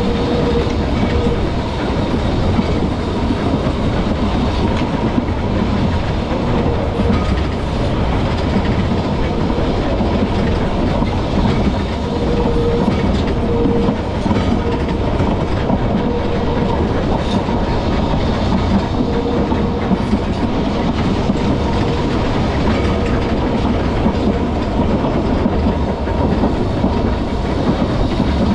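Vintage Manx Electric Railway tram car running along its narrow-gauge track: a steady rumble of wheels on rails with occasional clicks over rail joints. A faint tone comes and goes every second or two.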